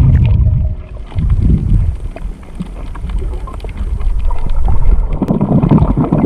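Underwater water noise picked up by a GoPro held just below the surface while swimming: a low rumbling rush of water that swells and dips, with scattered small clicks and crackles.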